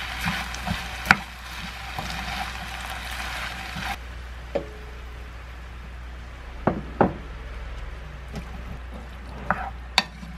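Spicy pork, cabbage and green onions sizzling in a frying pan as a spatula stirs them, knocking and scraping against the pan. The sizzle dies down about four seconds in as the heat is turned off, and scattered spatula knocks go on after it.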